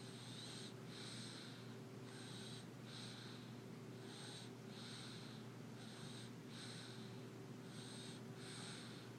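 Sleeping baby's snoring breaths: soft, hissy in-and-out breaths in pairs, about one pair every two seconds, five in all.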